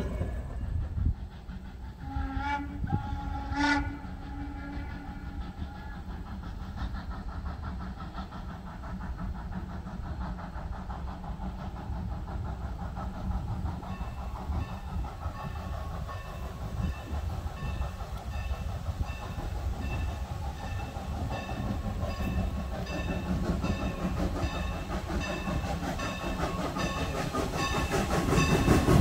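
Steam locomotive running with a steady low rumble, giving a short blast on its steam whistle about two seconds in. From about halfway, its bell rings steadily, roughly twice a second, and the train grows louder near the end.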